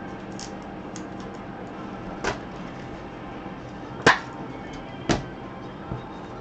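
Three sharp knocks, the middle one loudest, with a lighter tap near the end, as trading card packs are handled on a table, over a low steady hum.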